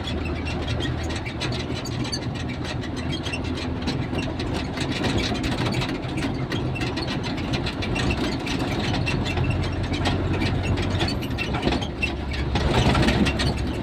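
A motor vehicle's engine running steadily, with a constant clatter of small rattles, louder for a moment near the end.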